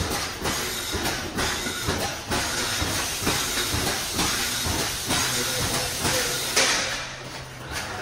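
Wire mesh cable tray welding machine running, its welding head clattering with uneven knocks about twice a second as it spot-welds the mesh. A loud burst of air hiss comes about six and a half seconds in, and a low steady hum runs through the second half.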